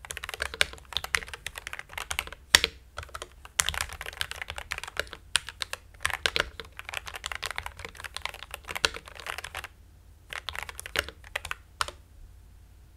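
Typing on a Dark Project KD87A mechanical keyboard with lubricated G3Ms Sapphire linear switches: rapid runs of key clacks with a couple of short pauses and one louder stroke early on. The typing stops about a second before the end.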